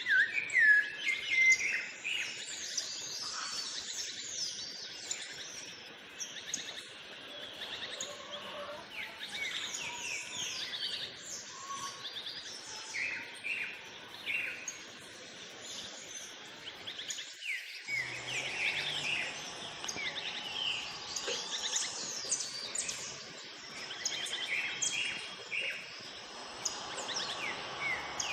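Several birds chirping and singing at once: a dense chorus of short, quick calls and trills.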